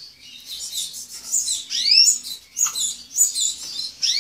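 Domestic canary singing a fast, unbroken song of quick chirps and sweeping whistled notes.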